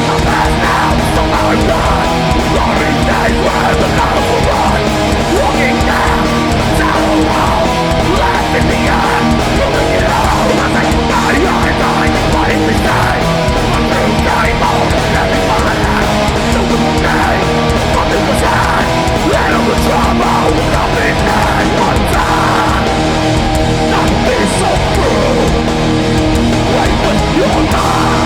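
Metallic hardcore band playing live at full volume: heavy distorted electric guitars over pounding drums, steady and unbroken.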